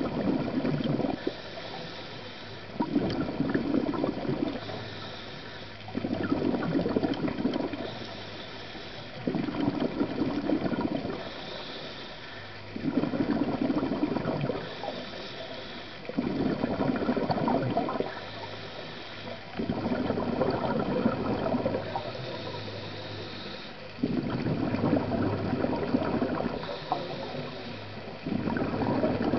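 Scuba diver breathing through a regulator underwater: a burst of exhaled bubbles lasting a second or two, about every three to four seconds, with a faint hiss of inhalation between them.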